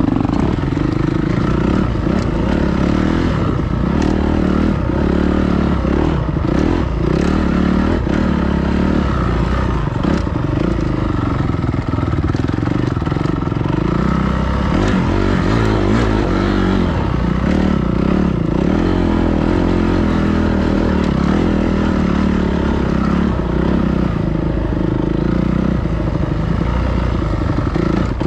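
Dirt bike engine running continuously as the bike is ridden, its pitch rising and falling with the throttle, with scattered clattering knocks from the bike.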